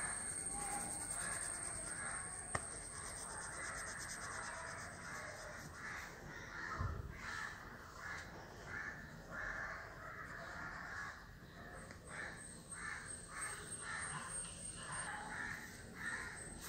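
Faint crow caws, short calls repeated irregularly, several in a row.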